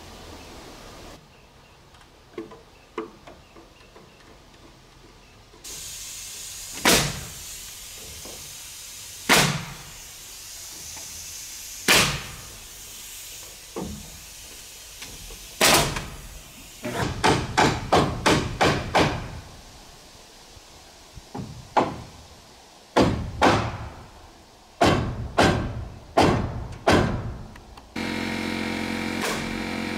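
Hammer blows on wooden framing, tapping a lifted roof-overhang piece into place on a shed truss: single strikes a few seconds apart, then quick runs of blows. Near the end a cordless drill starts running steadily.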